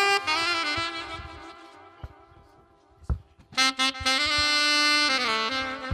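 Slow instrumental music led by a saxophone playing long, held notes. One phrase dies away about two seconds in, and a new phrase begins just after the middle.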